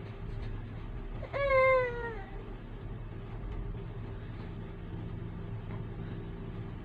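Seven-month-old baby giving one short whiny cry about a second in, its pitch jumping up and then sliding down. A steady low hum runs underneath.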